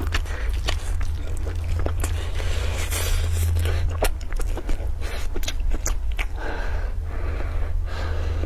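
Close-miked chewing and wet mouth sounds from eating rice, with sharp clicks of chopsticks against a glass dish, over a steady low hum.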